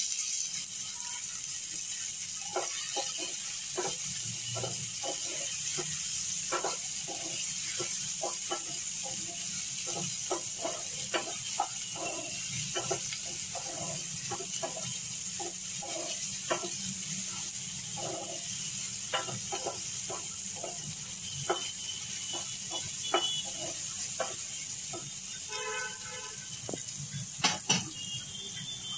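Chopped onion and tomato with cumin seeds and dried red chillies sizzling steadily in hot oil in a non-stick kadai, with frequent short taps and scrapes of a spatula stirring them against the pan.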